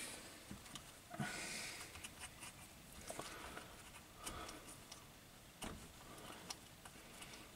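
Faint small clicks and rustling as crimped wire terminals are fitted onto a motor's terminal studs by hand, with a few sharper metallic ticks scattered through.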